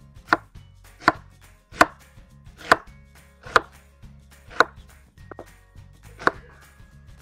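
Kitchen knife chopping an onion on a wooden cutting board, dicing it: about eight separate sharp strokes, roughly one a second.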